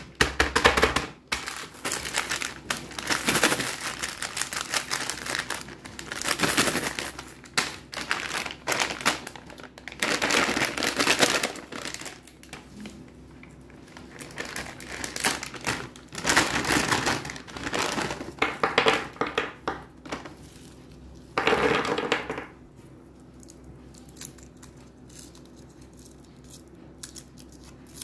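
Crinkly plastic candy wrapping, a Hershey's Kisses pouch, crackling and crinkling in the hands as it is torn open, in loud spells for most of the time. It gives way to soft rustling of the foil wrapper on a single Kiss near the end.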